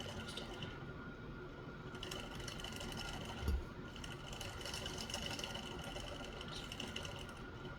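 Faint steady machine-like hum, with light ticking from small steel revolver lock parts being worked into the frame by hand, and one soft low thump about three and a half seconds in.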